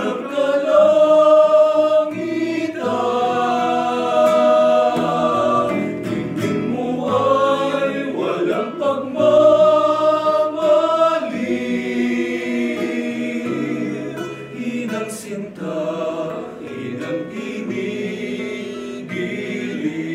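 A group of men singing a hymn together, accompanied by a strummed acoustic guitar.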